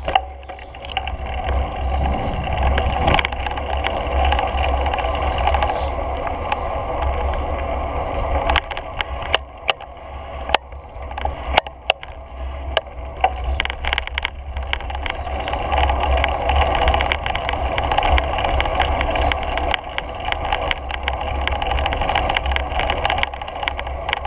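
Steady rumble and rolling noise of a GoPro Hero3+ travelling quickly along an asphalt path, with scattered short clicks and rattles.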